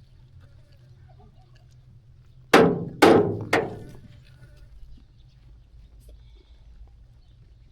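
Sheep bleating: three short, loud bleats in quick succession about two and a half seconds in.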